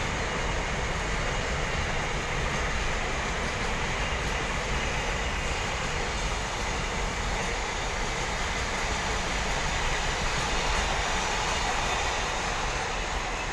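Goods train running on the rails: a steady, even rumble and rush of the wagons' wheels on the track.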